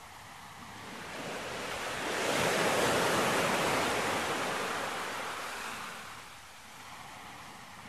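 Surf on a sandy beach: a wave washes in, rising from about a second in, loudest around three seconds, and fading away by about six seconds, over a steady low hiss.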